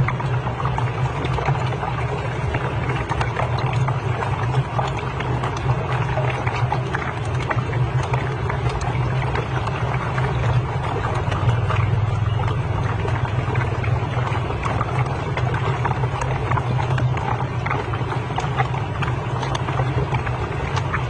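Many marbles rolling and clicking down a marble run in a continuous dense rattle, over a steady low hum.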